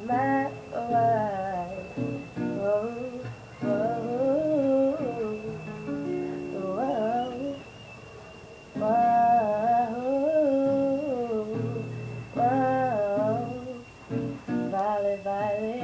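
Acoustic guitar strummed while a voice hums a wordless melody over it, in phrases, with a short lull about halfway through.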